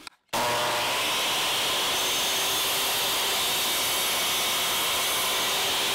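Hitachi 10-inch sliding compound miter saw running at full speed through a miter cut in poplar frame molding: the motor noise starts abruptly and holds steady.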